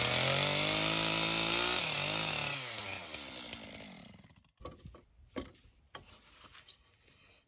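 Chainsaw cutting the tapered end off a ponderosa pine board, running at a steady high speed, then winding down in pitch to a stop about two to four seconds in. A few knocks and clicks of wood follow.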